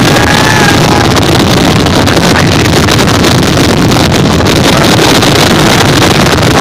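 Fireworks finale barrage: a loud, unbroken wash of overlapping booms and crackles with no gaps between bursts.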